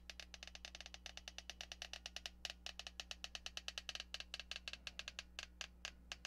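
Silicone sealant being squeezed from a caulk gun: a faint, rapid run of small clicks and crackles, about ten a second.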